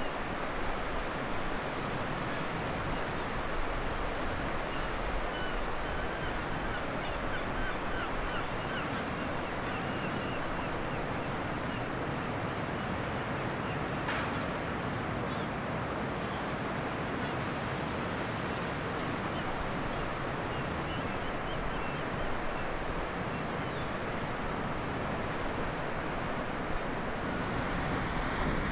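Baltic Sea surf washing steadily onto a sandy beach, an even rush of breaking waves.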